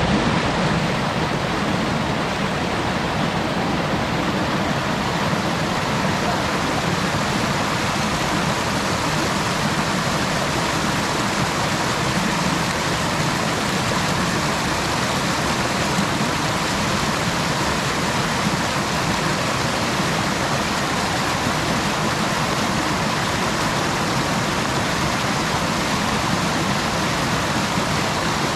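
Steady rush of a small creek waterfall, water pouring over rocks.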